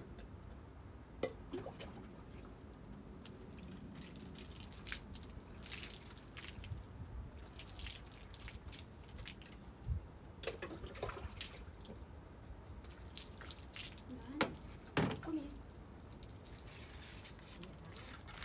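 Water dripping and splashing off a wet dog being washed by hand, in irregular drops and small splashes, with a cluster of louder knocks and splashes about fourteen to fifteen seconds in.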